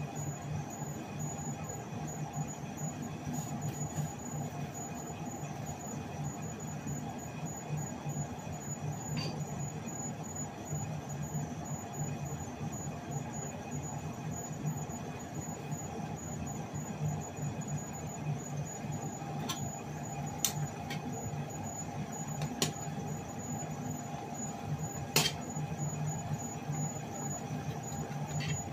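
Steady kitchen hum with a low drone while a pot of miki noodle soup boils under a glass lid on a gas burner. A few sharp clicks come in the last third, and the pot clatters briefly at the very end as the lid comes off and the noodles are stirred.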